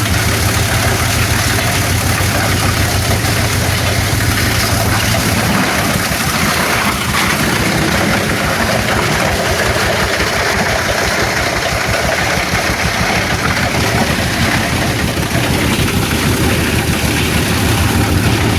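Single-cylinder Eicher tractor diesel engine running steadily, driving a plastic scrap grinder, with an even, rapid pulse of its firing strokes under the grinder's noise.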